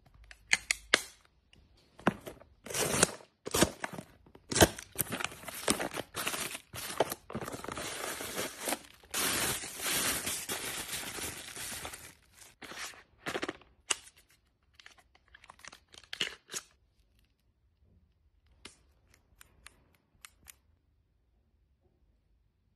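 Plastic bubble-wrap packaging crinkling, rustling and tearing as it is pulled off small cosmetic boxes, in quick bursts that become almost continuous in the middle. It trails off, and near the end there are a few light clicks.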